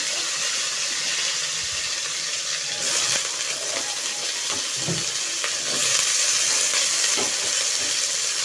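Potato cubes frying in hot mustard oil with cumin seeds in a wok: a steady sizzle that grows slightly louder about six seconds in.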